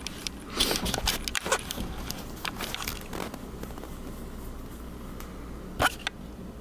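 Handling noise: irregular rustling scrapes and clicks, with one sharper click near the end.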